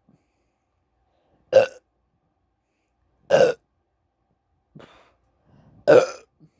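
A man burping after chugging a Coke, the gas coming up from the carbonated drink. There are three loud, short burps about two seconds apart, with a fainter one just before the last.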